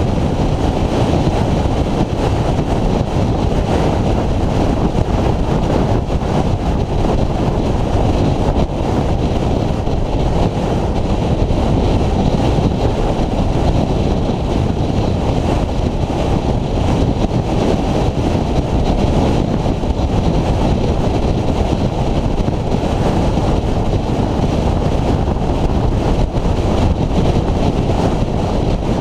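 Honda VFR800X Crossrunner motorcycle riding at a steady cruising pace: a loud, steady rush of wind buffeting the camera microphone over the bike's V4 engine and tyre noise, with no revving or gear changes.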